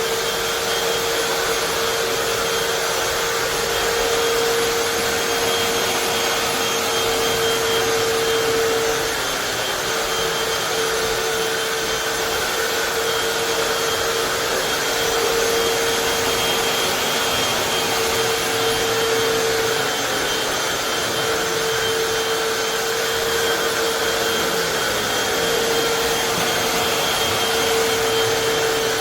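Hoover FloorMate Deluxe hard floor cleaner running: a steady motor hum with a fainter high whine over a wash of suction noise, the hum wavering a little every few seconds.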